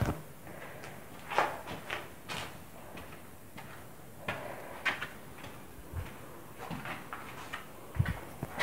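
Slow, irregular footsteps and scuffs on a concrete floor, with a few sharper knocks and scrapes.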